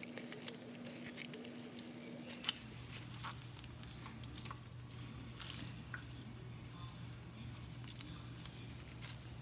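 Faint scattered drips and squelches as a cloth towel full of salted cucumber pieces is wrung out, water dripping back into a stainless steel bowl.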